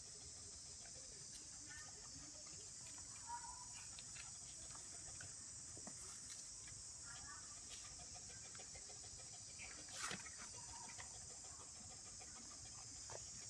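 Steady high-pitched drone of insects, with faint short chirps. Small scuffles and clicks come from puppies wrestling and chewing a plush toy on a concrete floor, the loudest a brief scuffle about ten seconds in.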